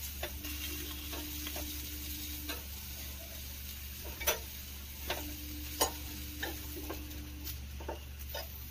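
Gas burner hissing as brinjals and tomatoes roast over the open flame on a wire grill, with scattered sharp crackles about once a second. A faint steady hum comes in twice.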